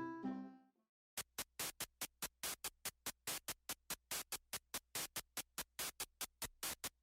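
Background music: a plucked-string melody fades out in the first second, then after a short gap a fast, even beat of short noisy percussion hits begins, about five a second, over a low hum.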